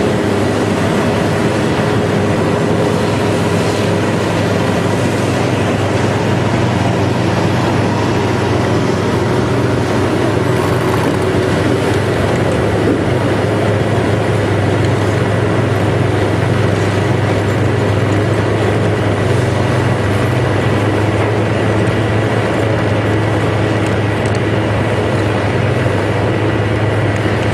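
Large bulldozer's engine running steadily at an even pitch, with a faint steady high whine above it.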